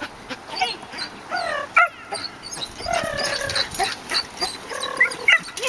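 A dog barking and yipping in short, excited calls, with a longer drawn-out whine about three seconds in.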